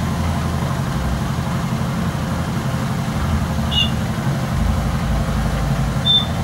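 A motor running steadily, a low drone with a fast, even throb. Two short high chirps come about four seconds in and near the end.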